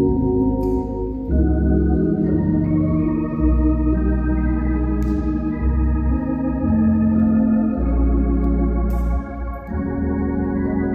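Organ playing slow, sustained chords over a deep bass, the harmony changing every second or two.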